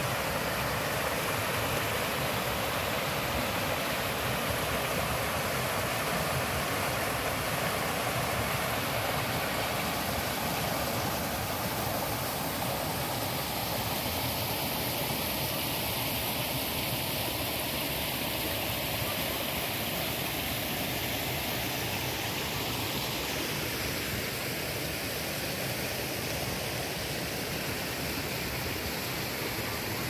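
Mountain stream rushing over rocks in a steady, unbroken rush of water.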